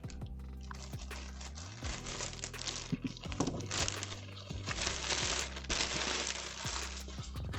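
Packaging crinkling and rustling in the hands, with small clicks and taps, as the palm rest is unboxed, over background music.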